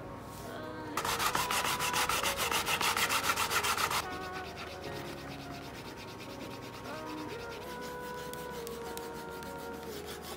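Cloth rubbed fast back and forth over a leather notebook cover, buffing the leather, in rapid even strokes; the rubbing is loudest for about three seconds, then goes on lighter and fainter. Faint background music plays underneath.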